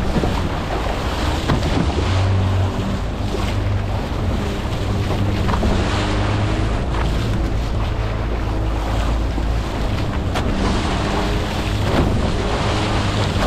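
Wind buffeting the microphone on a boat in rough sea, over the wash of water and a steady low motor hum.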